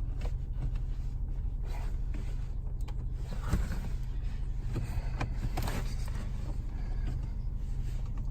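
Scraping, rustling and clicking of plastic under a car's dashboard as an OBD2 plug module is fitted into the diagnostic port, over a steady low hum in the cabin.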